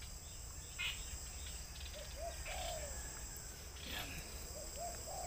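Steady high trilling of insects, with a bird giving short low calls in two groups, about two seconds in and again near the end.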